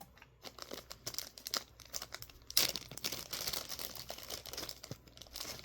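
Packaging of a small freebie being crinkled and torn open by hand: irregular rustling with a louder, denser stretch of crinkling in the middle.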